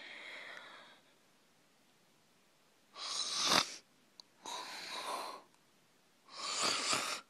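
A boy breathing heavily right at the microphone: four loud, noisy breaths about one and a half seconds apart, the first one faint and the second the loudest.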